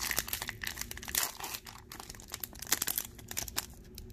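Foil wrapper of a Pokémon Celestial Storm booster pack crinkling as it is opened by hand: a dense run of small crackles.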